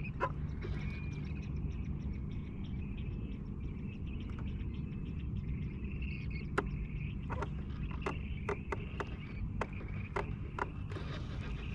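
Outdoor ambience on open water: a steady low rumble with faint high-pitched chirping over it, and scattered sharp ticks, more of them in the second half.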